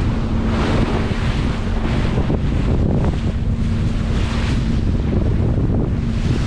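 Strong wind buffeting the microphone over the rush of ocean waves around a motor yacht underway, with a steady low hum underneath that fades out a little past the middle.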